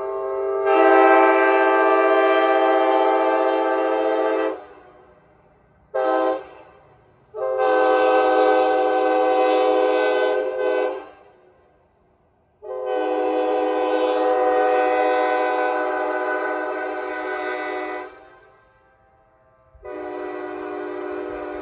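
Nathan Airchime K5LA five-chime locomotive air horn, an ex-Norfolk Southern narrow-font casting fitted with new diaphragms, sounding its chord in repeated blasts. A held blast swells louder about a second in, a short toot follows about six seconds in, then two long blasts of about four and five seconds, and a softer blast starts near the end.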